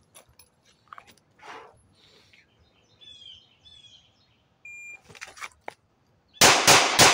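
Birds chirping, then a shot timer's start beep about four and a half seconds in. Near the end a 9mm pistol starts firing a rapid Bill Drill string, three shots about a quarter second apart, which are the loudest sounds.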